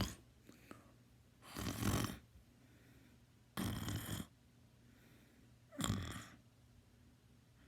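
A teenager snoring loudly. Three snores come about two seconds apart, each lasting about half a second, with near-quiet gaps between them.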